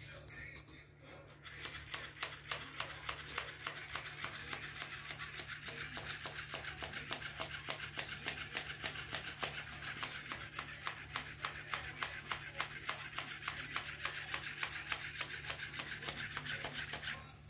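A cat licking a plush fish toy: an even run of rough tongue rasps, about four a second, starting about a second and a half in and stopping just before the end.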